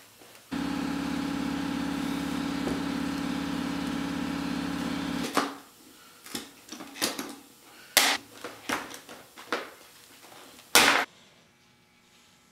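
A steady mechanical hum for about five seconds that cuts off abruptly, then a hand plier stapler snapping staples through leather into a motorcycle seat pan, about seven sharp snaps spaced roughly a second apart.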